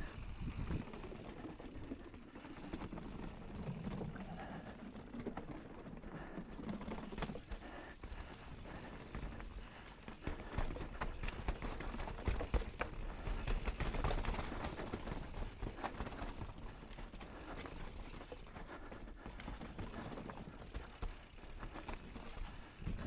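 Mountain bike riding fast downhill: tyres rumbling over wooden boardwalk, dirt and rock, with a constant clatter of small knocks and ticks from the bike.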